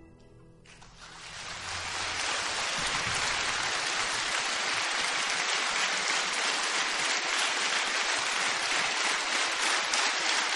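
The last acoustic guitar chord fades away, and an audience breaks into applause about a second in, rising and then holding steady.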